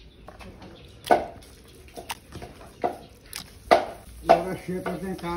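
Raw chicken pieces dropped by hand one after another into a steel bowl of spice paste: about six separate wet slapping thuds.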